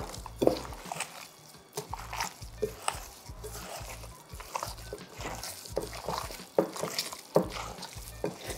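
Hands squishing and turning oil-coated, spice-rubbed beef chunks in a glass bowl: irregular wet squelches and slaps, the loudest right at the start. Soft background music runs underneath.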